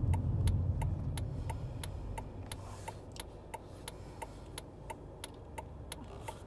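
Car's turn-signal indicator ticking steadily, about three clicks a second, over low road and engine rumble that fades as the car slows.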